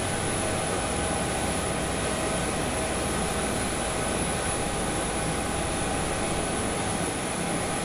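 Jet airliner engines running steadily: an even rushing noise with a constant high whine, holding the same level throughout.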